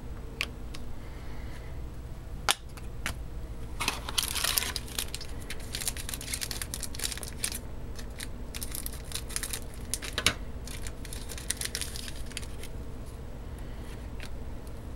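Scissors snipping open a foil trading-card pack, followed by a long stretch of foil-wrapper crinkling and crackling as the pack is torn open and the cards pulled out.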